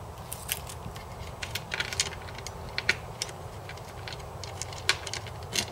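Irregular light metallic clicks and clinks of metal parts being handled on a boat seat's aluminium mounting plate and slide bracket, over a steady low background hum.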